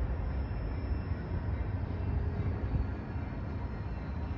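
Union Pacific freight train's cars rolling along street-running track, a steady low rumble.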